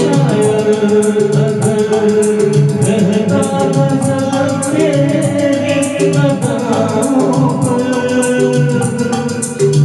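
Music: a Hindi film song with singing over a steady shaker beat and bass line.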